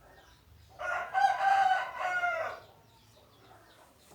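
A rooster crowing once, a loud call of about two seconds that starts about a second in.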